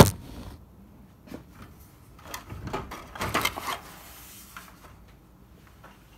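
A sharp knock as a phone is set down on a hard surface, then a run of plastic clattering and rattling from about two to four seconds in as a pickup's aftermarket grille is pulled outward off its mounts by hand.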